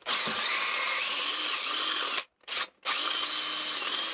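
Electric drill with a half-inch twist bit boring into the end grain of a small log. It runs for about two seconds, stops, gives a short burst, then runs steadily again, its motor pitch wavering as it cuts.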